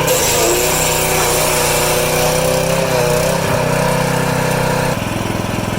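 A small engine running steadily under load. About five seconds in, its sound changes to a quicker, pulsing rattle.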